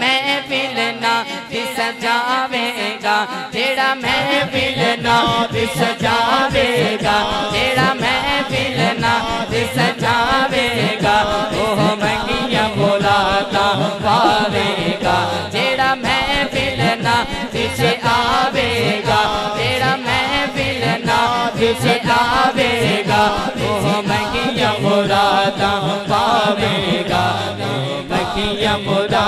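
A man sings a devotional Islamic kalam in an ornamented, chant-like style into an amplified microphone. A fast, steady low beat runs underneath from about a second in.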